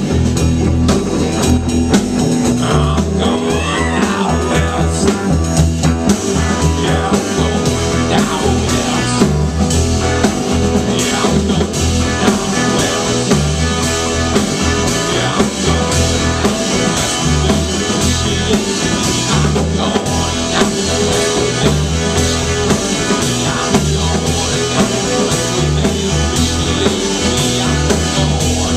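Live band playing an instrumental passage: baritone saxophone, upright bass and drum kit, with a steady beat.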